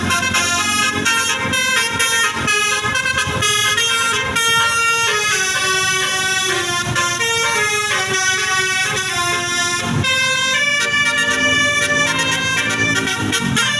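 A bus's basuri musical air horn playing a tune, the 'telolet' sound: a long run of held notes that step from one pitch to the next every half second or so, several tones sounding together. The tune breaks briefly about ten seconds in, then goes on.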